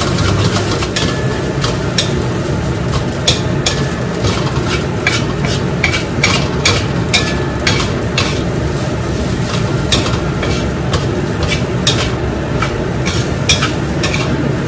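Fried rice sizzling in a stainless steel wok while a metal spatula stirs it. The spatula scrapes and clacks against the wok sides at irregular moments, about two times a second, over a steady frying hiss.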